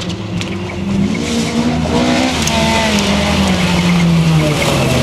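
Mk2 Ford Escort rally car's engine heard from inside the cabin, pulling hard along a stage. It gets louder about a second in, its pitch sagging slowly, then dips sharply near the end and climbs again, over steady tyre and road noise.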